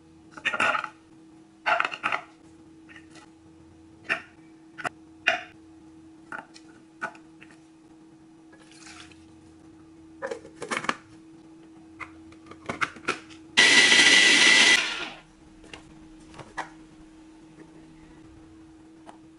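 Ingredients clattering into the plastic bowl of an electric mini food chopper and the lid knocking into place, then the chopper motor and blades run once for about a second and a half, grinding the chillies, shallots, garlic and spices into a paste.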